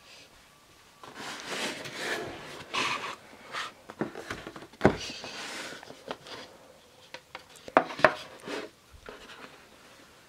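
A cardboard box being handled and opened on a wooden tabletop: rubbing and sliding noises, with a few sharp knocks, the loudest about five seconds in and a close pair near eight seconds.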